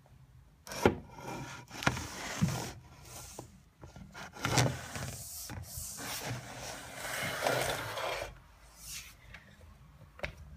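Irregular scraping and rubbing with several sharp knocks as a husky paws at the floor and the wooden bed base, trying to reach a ball stuck underneath. The sounds come in uneven bursts and die down about eight seconds in.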